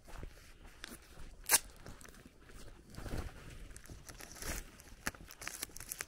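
Footsteps on a dirt lane, uneven and crunching, with one sharp click about a second and a half in.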